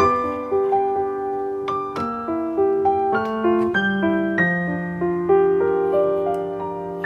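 Background piano music: a gentle melody of single notes, a few a second, each ringing on and fading.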